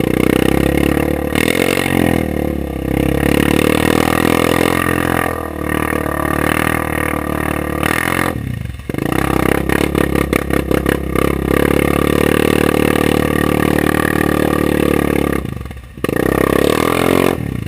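ATV engine revving high and held there for long stretches. It drops off briefly about eight and a half seconds in and again near the end.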